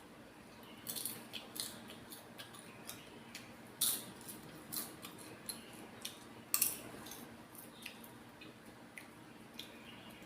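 Microwave popcorn being eaten: irregular soft crunches and crackles from chewing and handling the popcorn and its bag, with a couple of sharper ones about four and six and a half seconds in.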